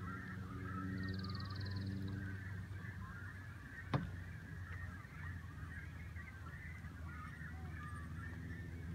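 A roost of cormorants calling from the treetops, a steady chorus of many overlapping calls. A single sharp tap about four seconds in.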